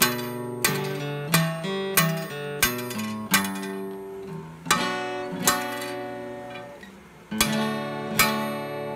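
Acoustic guitar music: strummed chords ringing out, with a short pause near the end.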